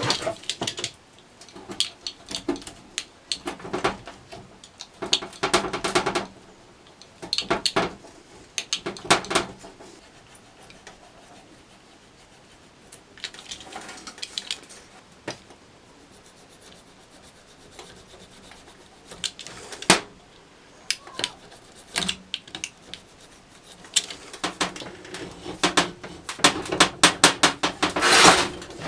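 Irregular clattering, scraping and rubbing of metal and wooden parts handled by hand, in bunches of knocks and scrapes with quieter gaps in the middle.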